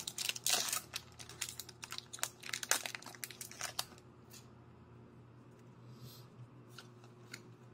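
Yu-Gi-Oh! booster pack foil crinkling and trading cards being handled, with quick sharp rustles and flicks that thin out to a few faint ones about four seconds in.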